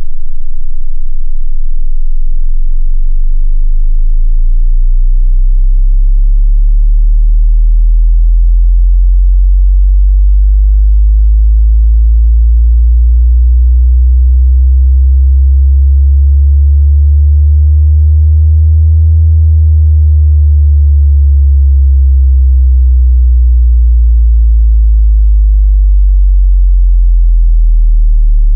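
Synthesized bass test tone for subwoofers: a loud, deep hum with overtones that slowly rises in pitch for about two-thirds of the time, then slowly falls again.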